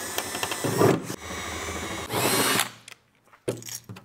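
Cordless drill with a small bit drilling a hole through a van's sheet-metal rear door: the motor whines steadily for nearly three seconds, getting louder and rising in pitch just before it stops. A few light rustles follow near the end.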